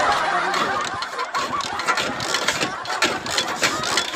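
Motorcycle engine being started and running unevenly on a bike that had broken down, a fault the mechanic takes for a wiring problem.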